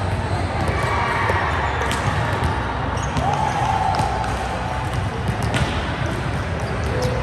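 Reverberant sports-hall ambience during a volleyball game: a few sharp ball impacts over a steady background of hall noise and indistinct voices.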